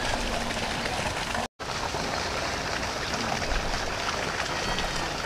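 Cauliflower pakoda batter deep-frying in hot oil in a kadai over a wood fire: a steady sizzle with fine crackling, and faint voices in the background.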